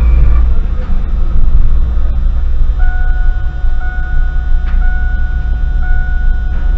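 Low engine and road rumble of a car driving slowly, heard inside the cabin. About three seconds in, a steady electronic beep starts, repeating about once a second.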